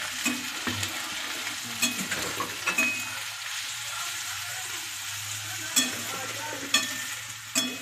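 Strips of carrot and green beans sizzling in hot oil in a steel kadai as they are stirred with a spatula, which clinks against the pan a few times.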